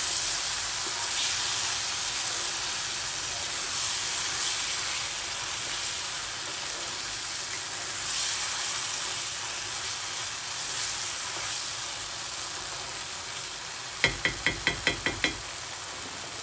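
Tomato and chicken sauce sizzling in a frying pan while it is stirred with a wooden spoon, a steady hiss that swells now and then with the stirring. Near the end comes a quick, evenly spaced run of about eight sharp clicks.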